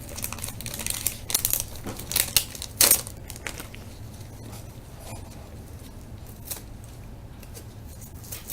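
A 1998 Bowman Chrome football card pack being torn open, its wrapper tearing and crinkling in short bursts over the first three seconds. After that come only faint sounds of the cards being handled.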